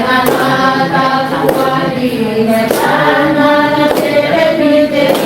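Choir singing a hymn, several voices together holding long notes that change pitch from note to note.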